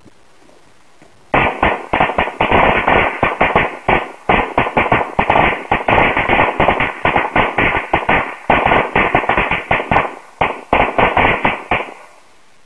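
Firecrackers going off in a rapid, irregular run of loud bangs, starting just over a second in and lasting about ten seconds with a few brief pauses.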